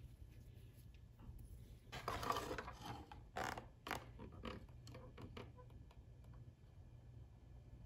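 Faint handling noises as a flexible drive shaft cable is fed into the greased stuffing tube of a plastic RC boat hull: a scraping rustle about two seconds in, then a few light clicks and knocks, over a steady low hum.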